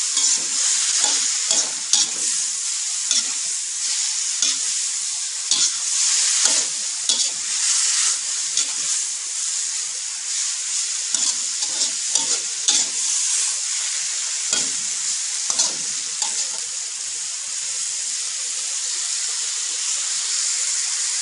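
Water spinach sizzling as it is stir-fried in a wok, with a metal spatula scraping and knocking against the pan. The scrapes come often at first and thin out over the last few seconds.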